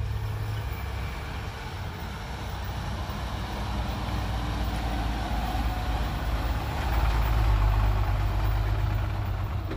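Loaded dump trucks' diesel engines rumbling as they drive past on a dirt road, the sound building and loudest near the end as one truck passes close by.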